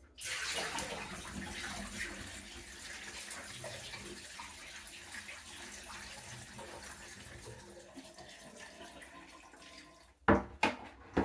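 Water poured into a pedestal sink and running down the drain through a newly fitted P-trap during a leak test; it starts strong and slowly tapers off over about ten seconds. Near the end, three sharp knocks.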